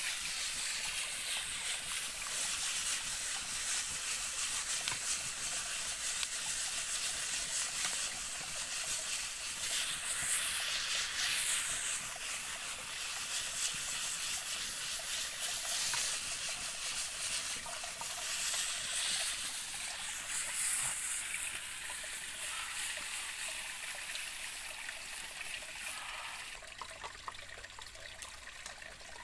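Bamboo shoots and frog meat sizzling in a frying pan over a wood campfire: a steady hiss with fine crackles that swells and fades as the pan is worked. It turns quieter about three seconds before the end.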